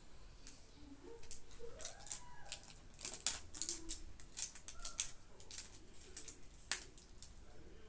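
Plastic wrapping of an L.O.L. Surprise ball being picked at and peeled in the hands: a string of sharp, irregular crackles and clicks, thickest in the middle.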